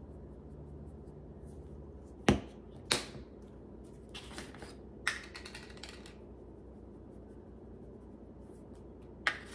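Spice jars set down with two sharp knocks on a hard countertop, then a seasoning shaker shaken over a glass mixing bowl for a couple of seconds, with another knock near the end.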